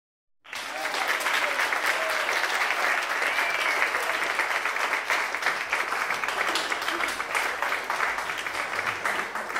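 Audience applauding, breaking out suddenly about half a second in and holding steady, with a few voices among the clapping.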